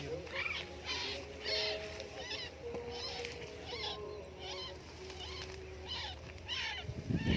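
White-breasted waterhen calling over and over in short harsh calls, about two a second, over a faint steady hum; a louder rough rustling noise comes in near the end.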